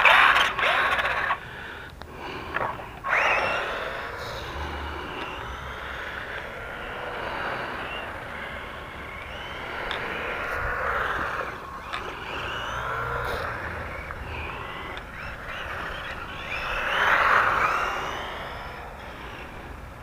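Small battery-powered four-wheel-drive RC ATV's electric motor and gears whining, rising and falling with the throttle as it drives; loudest right at the start and in a swell near the end.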